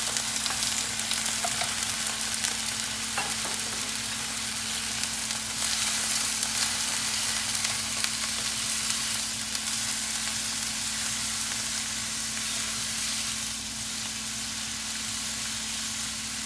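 Food sizzling steadily in a hot pan of oil and a little water, over a steady low hum. The sizzle eases slightly near the end.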